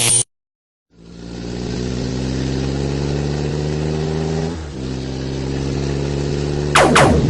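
Engine-like mechanical hum sound effect, fading in about a second in and running steadily, with two quick, loud falling-pitch sweeps near the end.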